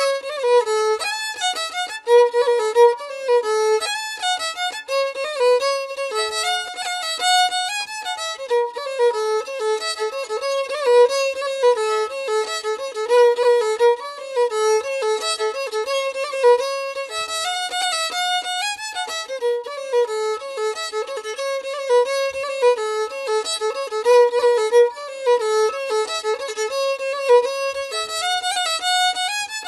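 Background instrumental music: a single melody line playing without pause.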